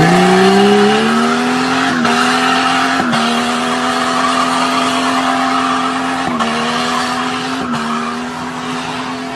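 A vehicle engine finishes a quick rev-up at the start, then is held at steady high revs, with a few brief dips.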